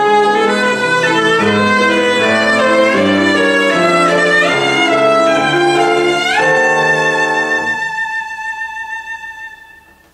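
Cello with piano accompaniment, playing a quick passage of changing notes. About six seconds in the cello slides up to a high note, holds it and fades away near the end.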